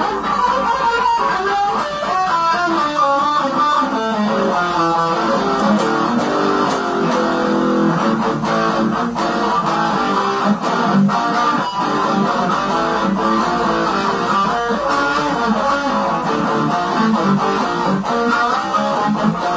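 Electric guitar played lead-style: quick runs of single notes in the first few seconds, then held notes and chords.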